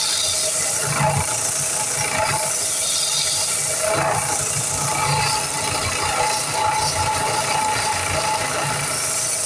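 Shop power tool, likely a belt grinder or sander, running steadily with a constant hiss and a few steady tones, swelling irregularly as the knife handle is pressed against it for profiling.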